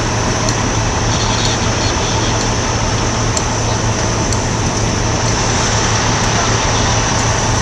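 Fire engines running close by at a fire scene: a steady, loud engine drone with a constant low hum under an even rush of noise.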